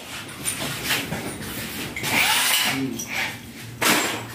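A power drill/driver runs in a short burst about two seconds in while the table's laminated board panels are being fastened. A sharp knock on the panels follows near the end.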